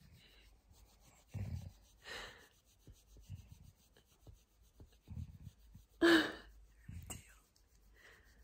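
Hand stroking a Labradoodle's curly coat as the dog shifts on a leather sofa: quiet rubbing and rustling, with a few low bumps and short breathy sounds, the loudest about six seconds in.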